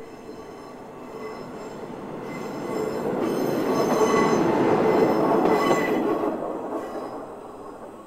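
Akechi Railway single-car diesel railcar passing over a level crossing close by: the rumble of engine and wheels on the rails builds, is loudest about four to six seconds in, then fades quickly as the car moves away.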